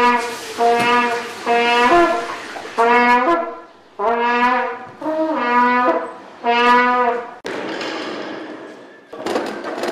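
A solo brass instrument playing a tune, one note line in short phrases of about a second each. About seven seconds in it stops, and a clatter of knocks follows as stacking chairs are moved about in a hall.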